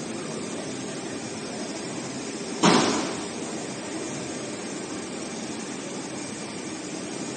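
Steady running noise of a CNC heating-wire sewing machine and the workshop around it, with one sharp bang a little under three seconds in that dies away within about half a second.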